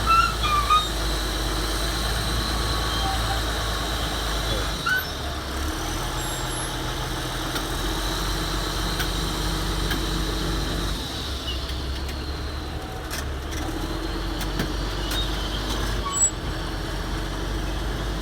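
Komatsu D375A bulldozer's six-cylinder diesel engine running hard under load as it pushes earth. Its deep drone shifts in pitch a few times, and a few short sharp sounds come near the start and again later.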